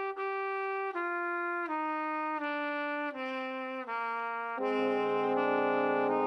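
A solo brass instrument plays a slow melody stepping down, a new note about every three-quarters of a second. A little over halfway through, more wind instruments come in on a louder held chord.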